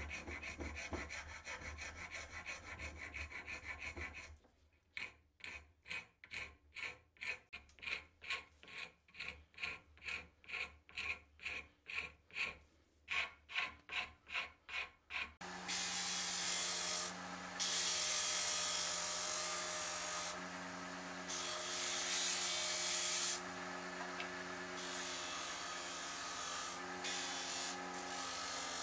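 A hand file rasping across a wooden dagger handle held in a vise, first in quick continuous strokes, then in separate strokes about two a second. About fifteen seconds in, a bench disc sander takes over: its motor runs steadily, and louder grinding rushes come each time the wood is pressed to the sanding disc.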